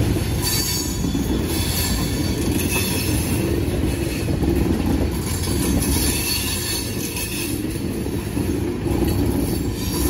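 Freight train tank cars rolling past on a curve: a steady rumble of wheels on rail, with wheel squeal coming and going over it.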